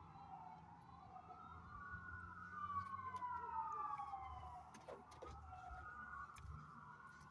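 Faint police siren wailing, its pitch sweeping slowly up and down, each rise and fall lasting a few seconds.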